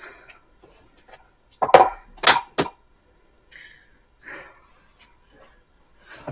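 A desk chair creaking and knocking under a heavy person's weight, with three sharp knocks close together about two seconds in.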